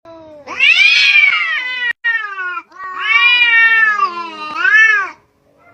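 A cat yowling in long, drawn-out wails that rise and fall in pitch: two long wails and a shorter third one near the end, with a sudden brief break in the first.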